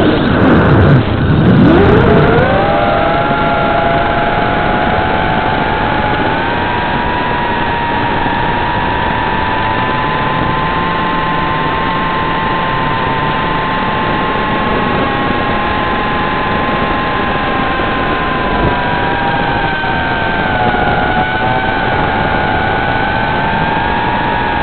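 Brushless motors and propellers of an FPV drone whining. Just after the start the pitch drops steeply to a low growl as the throttle is cut, then climbs back within about two seconds, the loudest part. For the rest it holds a steady whine of several close tones, with small pitch dips near the end.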